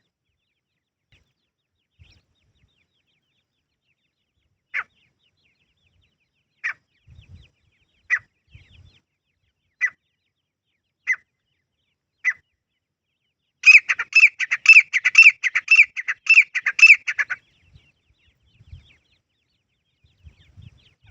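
Grey francolin calling: six short, sharp single notes a second or two apart, coming slightly faster, then a loud rapid run of about a dozen repeated notes lasting some four seconds.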